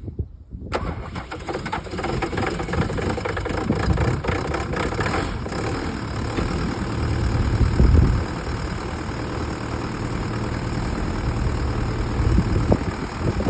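Bobcat T590 skid steer's diesel engine running cold after a cold start in freezing weather, with a steady clattering beat and a brief louder surge about eight seconds in.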